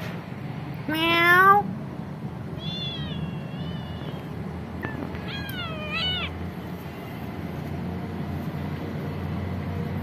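Domestic cats meowing: one loud meow about a second in, then two fainter, higher-pitched meows around three and five and a half seconds in.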